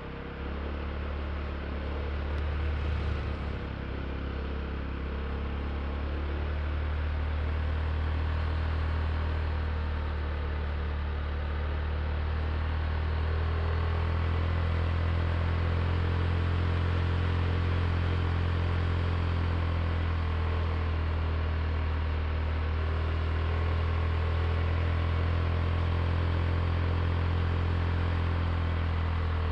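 Honda Click i scooter's single-cylinder engine running steadily at low road speed, with road and wind noise. It is a little quieter for the first few seconds, then holds even.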